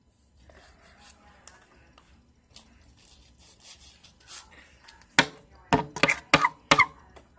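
Hands rubbing and knocking against the microphone, imitating gathering the listener's hair back for a ponytail in an ASMR hair-play roleplay. Faint rustling at first, then about five loud knocks and rubs in quick succession about five seconds in.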